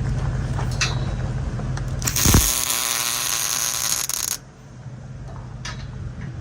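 A wire-feed (MIG) welder laying a tack on steel roll-cage tubing: a loud, crackling hiss of about two seconds that starts and stops abruptly, with a thump near its start, over a steady low hum.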